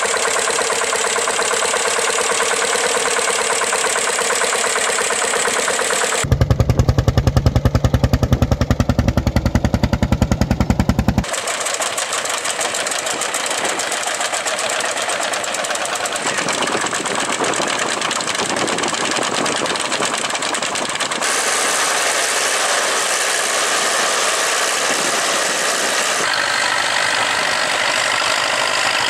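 Vintage tractor engines running during ploughing, heard in several abrupt cuts. About six seconds in, a louder, fast, even engine beat takes over for about five seconds, and after that steadier engine running returns.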